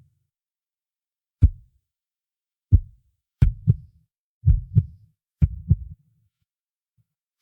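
Heartbeat sound effect: low lub-dub thuds, single beats at first, then paired beats about once a second, stopping for over a second near the end.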